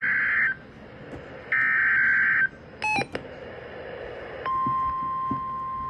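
NOAA Weather Radio emergency alert: two harsh, buzzing SAME digital header data bursts, about half a second and one second long, then a brief electronic blip. About four and a half seconds in, the steady 1050-hertz warning alarm tone starts.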